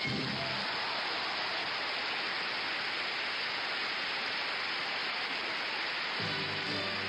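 Theatre audience applauding, a dense, steady clatter of clapping. The orchestra's last chord dies away at the start, and the orchestra starts playing again under the applause about six seconds in.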